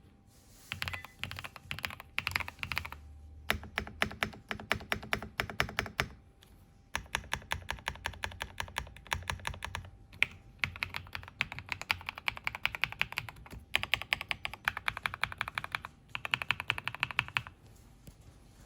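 Typing on an ABKO AS104 mechanical keyboard: fast runs of key clicks in several bursts, with short pauses between them.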